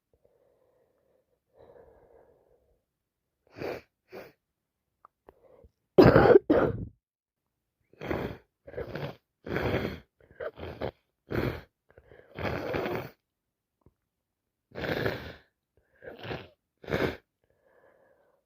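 A woman with a wet head cold in a fit of sneezing and coughing. Faint breathing comes first, then a loud double burst about six seconds in, followed by about a dozen shorter bursts spaced roughly half a second to a second apart.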